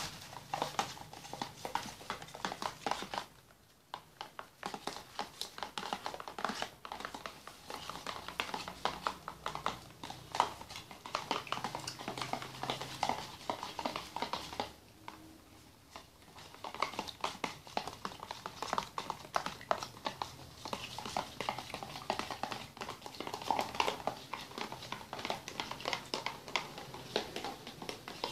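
Plastic spoons stirring thick, sticky glue mixtures for slime in small plastic tubs: a quick, irregular run of clicks and taps of spoon against plastic, with two short lulls, about 3.5 and 15 seconds in.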